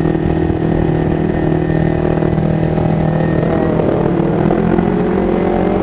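Kawasaki Ninja 250 FI's parallel-twin engine running at fairly steady revs while riding, heard from on the bike.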